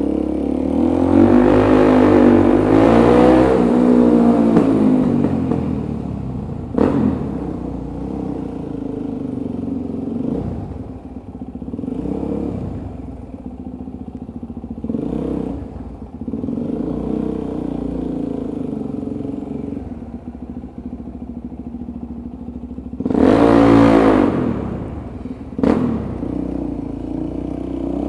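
Motorcycle engine revved hard for a few seconds, its pitch rising and falling, then running lower and steadier with brief blips of throttle, and a second short hard rev near the end. Two sharp cracks stand out, one after the first rev and one just after the second.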